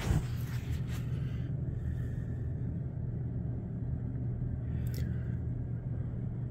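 Steady low rumble of outdoor background noise, with a short knock at the very start.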